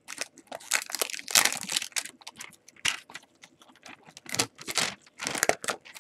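Clear plastic wrap crinkling and tearing as it is pulled off a trading-card hanger box by hand: a quick, irregular run of crackles.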